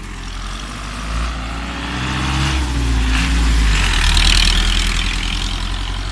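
Small dump truck driving past close by. Its engine rumble and tyre noise build to a peak about four seconds in, then fade as it pulls away.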